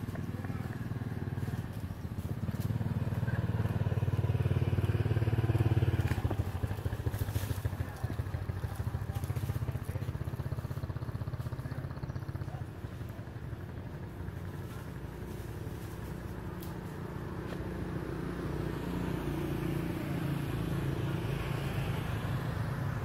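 A motor vehicle engine running steady, louder for a few seconds about two seconds in and swelling again near the end, with faint voices.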